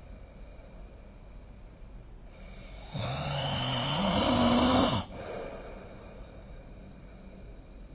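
A sleeping person snoring: one loud snore about three seconds in, lasting about two seconds and rising in pitch, with quieter breathing before and after it.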